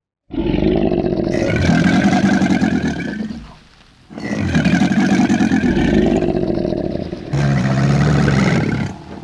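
An animal calling: three long, low calls, the first two about three seconds each and the last shorter.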